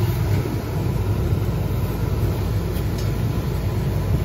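Jandy LRZ gas pool heater running with all of its burners firing, a steady low rumble; the heater is lit and heating with its new gas valve fitted.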